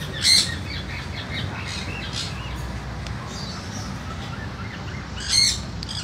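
Sun conure calling: two loud, short high squawks, one just after the start and one near the end, with softer chirps between them, over a steady low background noise.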